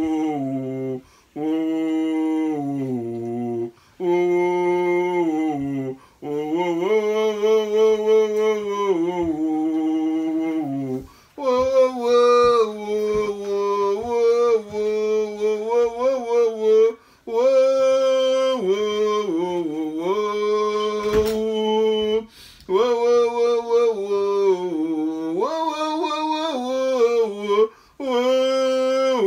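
A man singing a slow melody alone, without accompaniment, in long held notes broken by short pauses for breath.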